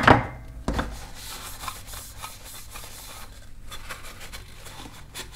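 Paper towel rubbing and scrubbing along a metal airsoft outer barrel, wiping it clean after sanding, with two louder handling knocks as the barrel is picked up in the first second.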